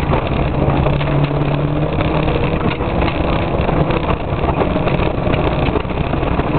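Škoda Favorit rally car's engine pulling hard, heard from inside the cabin, under a dense rush of tyre and gravel noise with a few sharp ticks. The engine note changes a little after two seconds in.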